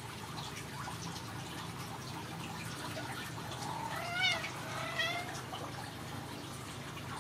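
A Ragdoll cat meowing twice, two short meows about a second apart, each rising then falling in pitch. Under them is a steady low hiss with faint ticks.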